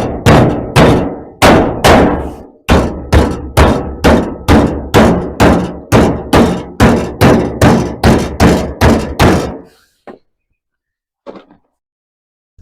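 Hammer beating on steel plate: a steady run of sharp blows, about two to three a second, each ringing briefly, stopping near the end, followed by two faint knocks.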